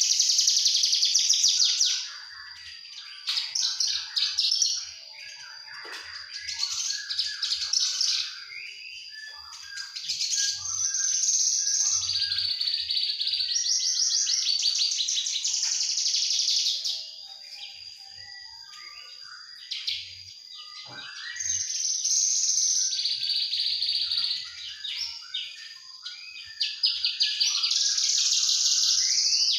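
Young Javan bush lark (branjangan) singing in rapid, dense high trilling bouts of a few seconds each, broken by short pauses. A thin steady high tone runs underneath.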